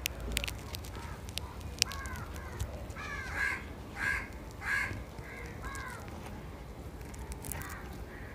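Crows cawing, a string of short calls, loudest in a run of three about three to five seconds in, with a few faint sharp clicks in between.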